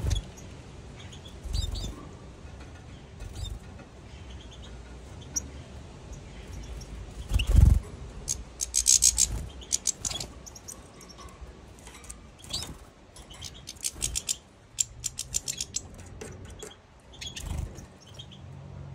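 European goldfinches calling in a cage: scattered short high chirps, and two bursts of rapid twittering, about eight seconds in and again around fifteen seconds. A few dull thumps, the loudest about seven and a half seconds in.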